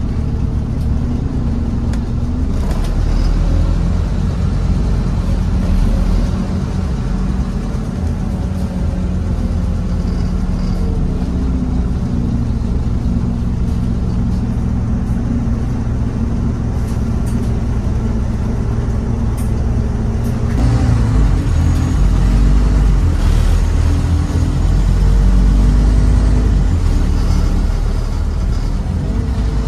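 Scania N230UB OmniCity bus's five-cylinder diesel engine heard from on board while the bus is under way. Its note steps up and down several times and grows louder from about twenty seconds in, with light clicks and rattles over it.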